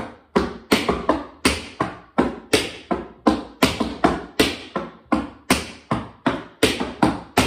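Metal taps on tap shoes striking a hard floor in a quick, steady step-heel-heel rhythm, about three sharp taps a second.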